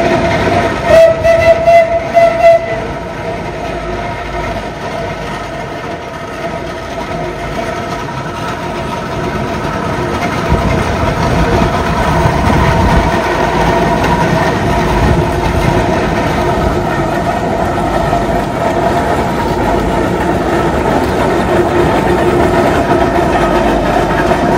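Steam traction engine running along the road on steel-rimmed wheels, its engine and gearing rumbling steadily and growing louder as it draws near. A few short, loud blasts of its steam whistle come about a second in.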